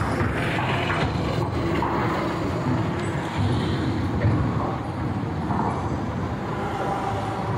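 Street traffic with a red single-decker city bus driving past close by, its engine and tyres giving a steady rumble over the general noise of cars and motorbikes.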